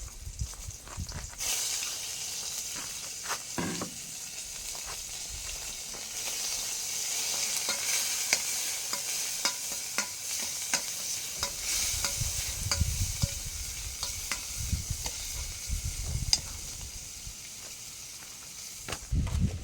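Food frying in a pan, sizzling steadily from about a second and a half in, with scattered clicks and scrapes of stirring.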